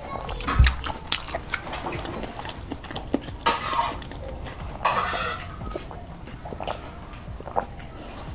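Close-miked drinking through the straw spout of a bottle: two longer sucking slurps, about three and a half and five seconds in, amid small wet mouth clicks.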